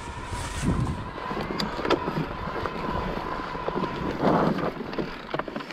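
Mountain bike rolling over a rough dirt singletrack, with clattering knocks from the bike over bumps and wind rumble on the handlebar camera's microphone. A faint steady whine stops about four seconds in, just before a louder scraping burst.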